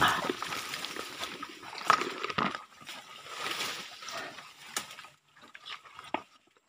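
Rustling and scattered knocks as someone pushes through leafy plants and steps over creek stones, with shallow water trickling. The loudest knocks come at the very start and about two seconds in, and it quietens near the end.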